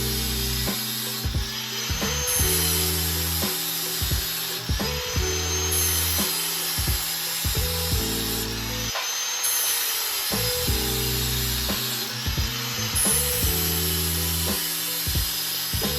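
Background music with a repeating, stepped bass pattern. Over it, an angle grinder runs on a lawn mower blade, sharpening it.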